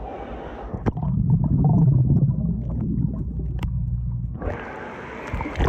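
Pool water heard through a phone microphone held underwater: a loud, muffled low rumble with all the high sounds cut off, and a couple of sharp clicks. About four and a half seconds in, the phone surfaces and the open, hissy pool noise returns, with a sharp knock just before the end.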